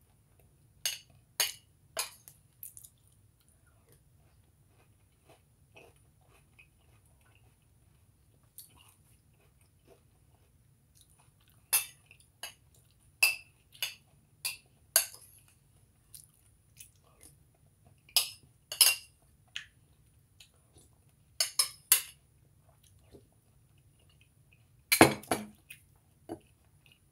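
Crunchy cereal (Cinnamon Toast Crunch with Raisin Bran) being chewed close to the microphone, in scattered groups of sharp crunches with quiet gaps between. A heavier knock comes near the end.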